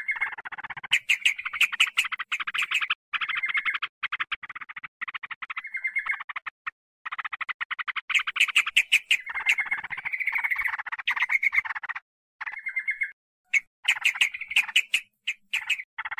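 Yellow-vented bulbul (trucukan) calls: noisy, rapid chattering phrases in quick succession with short breaks, the 'klepek' call used as a lure to provoke wild bulbuls.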